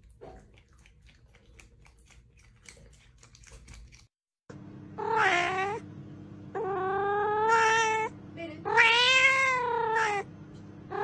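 A cat meowing three times in long, drawn-out calls, the second and third longer than the first, over a steady low hum. Before them come a few seconds of faint ticking.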